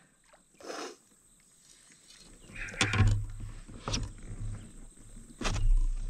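Handling noise in a Bonafide RVR 119 fishing kayak as a hooked bass is landed: a low rumble starting about two seconds in, with several sharp knocks on the hull, the loudest near the end.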